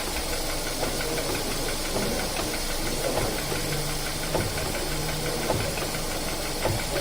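Car engine idling with the steering wheel forced to full right lock, its running sound steady with a low hum that holds for stretches in the middle and a few faint knocks scattered through, as the engine-driven power steering presses the repair bushing onto the steering rack.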